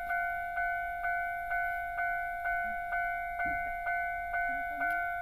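Japanese railway level-crossing warning bell ringing in its steady repeating pattern, about two strikes a second, each strike ringing on in a steady high tone.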